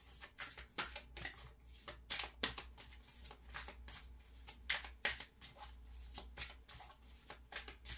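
A deck of tarot cards being shuffled by hand: a continuous run of irregular soft flicks and snaps, over a faint steady low hum.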